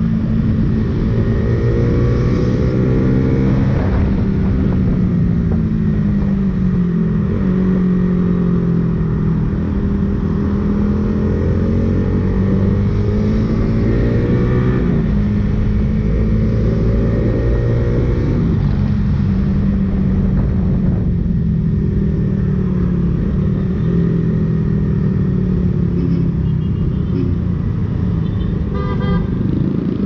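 Honda RS150 (Sonic 150) single-cylinder engine running through a Suzuki Raider R150 Fi stock exhaust under way: the revs climb in each gear and drop at the shifts, several times over. A vehicle horn toots briefly near the end.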